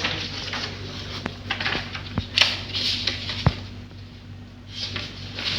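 A few light clicks and knocks with short spells of rustling, over a steady low hum.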